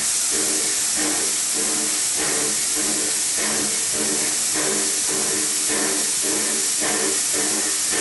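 Steam locomotive DD17 1049, a tank engine, standing and blowing off steam with a loud, steady hiss. Under the hiss a lower tone swells and fades in an even pulse about one and a half times a second.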